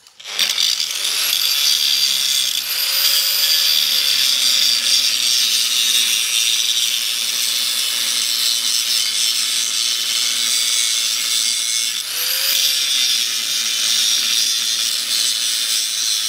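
Electric grinder running against steel without a break, its motor note sagging and recovering twice as it is pressed into the work: metalwork on a broken rear leaf spring.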